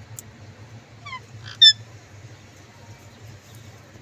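Indian ringneck parrot giving two short, high-pitched calls about a second and a half in, the second one loud and sharp, over a steady low hum.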